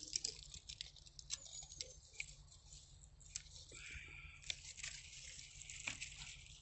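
Faint rustling of apple-tree leaves and twigs with scattered small clicks as a hand reaches in and grips an apple on the branch.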